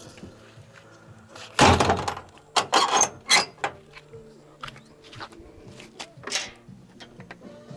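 A string of knocks, thuds and clatters, the loudest and deepest about one and a half seconds in, then a quick run of sharper knocks and a few single ones later.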